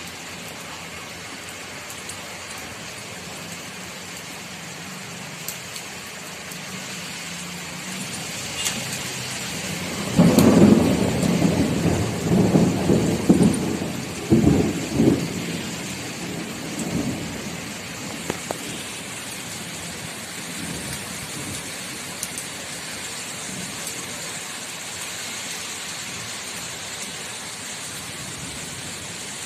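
Steady rain falling on hard wet paving. About ten seconds in, a loud rumble of thunder starts and rolls on in several surges for about six seconds before dying away.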